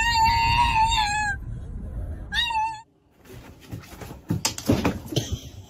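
A pug's long, high-pitched whine, wavering in pitch, then a second shorter whine, over the low rumble of a moving car. About three seconds in the whining stops, and soft taps and thumps follow.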